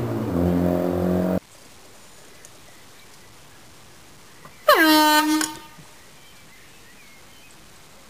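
A loud droning sound cuts off abruptly just over a second in. About halfway through, a hand-held air horn gives one loud blast about a second long, its pitch dropping sharply at the start before holding steady.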